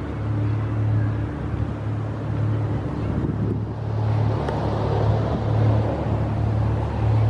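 Wind buffeting the microphone: a steady low rumble that swells and eases, with a broader rush of wind noise building up around the middle.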